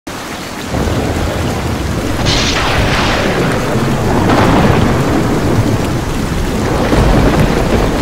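Thunderstorm: steady heavy rain with deep rolling thunder, and louder thunder crashes about two and four seconds in.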